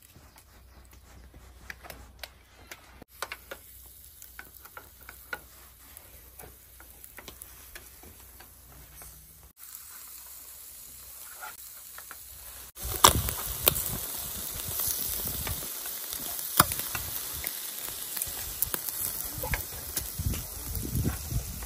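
Chicken and minced-meat kebabs on metal skewers sizzling over a charcoal grill, turning to a louder steady sizzle with sharp crackles from about thirteen seconds in. Before that, quiet scattered clinks as the metal skewers are handled on the grill.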